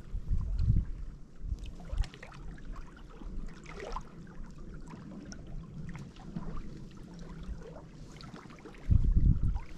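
Wind buffeting the microphone in low gusts, strongest at the start and again near the end, with small ripples lapping and trickling against the rocks of a lakeshore between the gusts.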